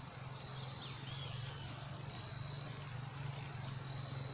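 Crickets chirring in a steady, high-pitched drone.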